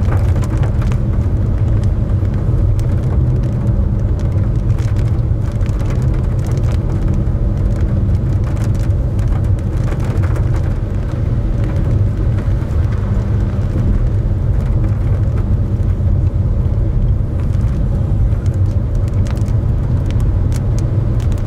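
Car driving on a wet road, heard from inside the cabin: a steady low rumble of engine and road noise.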